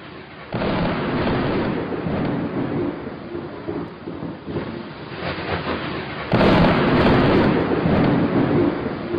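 Thunderstorm: rolling thunder over rain, with one loud clap about half a second in and a louder one about six seconds in, each rumbling on and slowly dying away.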